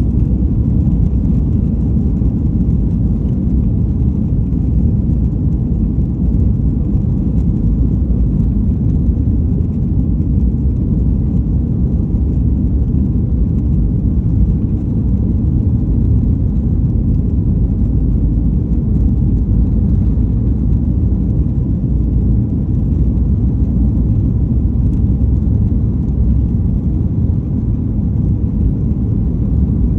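Jet airliner noise: a loud, steady, low rumble of engines and rushing air that holds even throughout.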